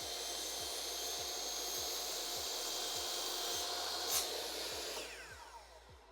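Electric power saw, set at 45 degrees, running at speed as it cuts the corner off a length of skirting board, with a steady high whine. A sharp click comes about four seconds in; then the motor winds down, its whine falling in pitch and fading near the end.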